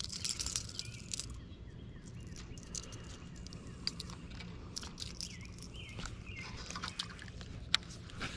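Quiet outdoor ambience: faint bird chirps over a low steady hum, with scattered light clicks from a baitcasting rod, reel and popper lure being handled, and one sharper click near the end.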